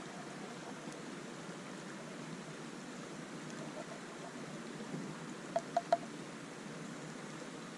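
Steady outdoor hiss, with three quick sharp taps in a row about two-thirds of the way through as a spoon is knocked against the rim of a wooden cup after stirring.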